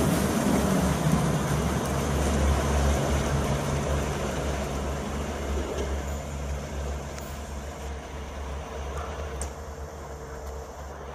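Irish Rail 22000 Class diesel multiple unit drawing away along the track, its diesel engines giving a steady low hum that fades gradually as it goes.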